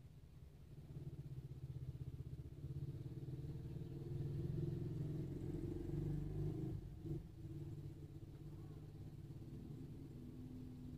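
A motor vehicle engine running, heard from inside a car. It grows louder over the first several seconds and eases off a little after about seven seconds.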